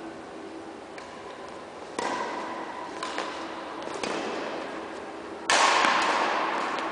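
Badminton rally in a large sports hall: sharp racket hits on the shuttlecock and knocks of play, the loudest hit coming about five and a half seconds in and echoing away over the next second.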